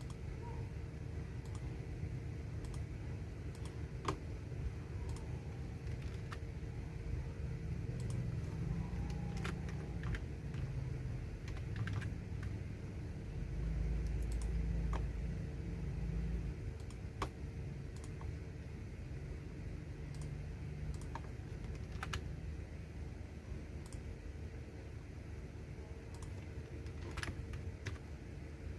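Computer keyboard being typed on: irregular, scattered keystroke clicks over a steady low rumble and a faint steady hum.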